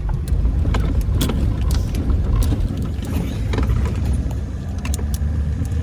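Truck driving on the road: a steady low engine and road rumble with frequent short clicks and rattles.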